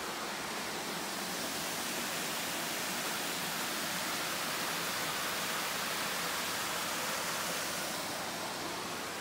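Small waterfall splashing down a rock face into a pool: a steady rush of water that swells through the middle and eases off near the end.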